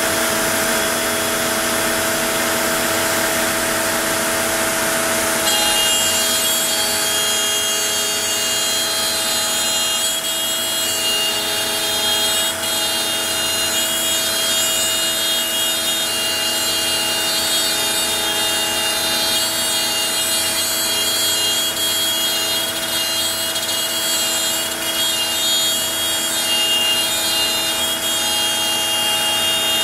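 CNC router spindle running steadily with its bit cutting wood, a constant hum with a high whine that joins about five seconds in.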